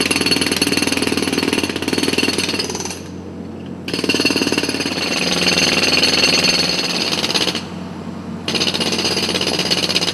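A jackhammer-type breaker hammering rapidly and steadily in three long bursts, stopping briefly twice: about three seconds in and again about seven and a half seconds in.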